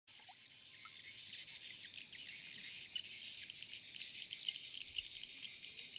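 Dense high-pitched chorus of insects chirring, with scattered bird chirps over it.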